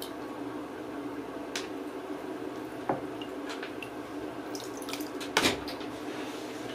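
Water splashing and dripping in a tub as a hand washes a wet kitten, with a few short splashes, the loudest about five seconds in, over a steady low hum.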